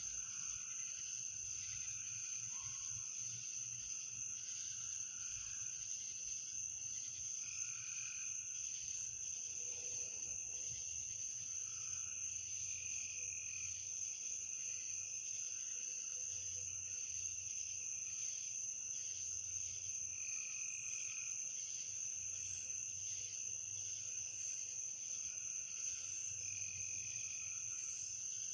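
Night chorus of crickets: a steady high-pitched trill, with lower calls that swell and fade every few seconds.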